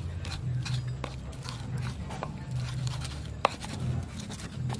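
Pestle grinding chili in a cobek mortar, with repeated rubbing strokes and clicks of the pestle against the bowl. One sharper knock comes about three and a half seconds in. The chili paste for the sambal is already fairly smooth.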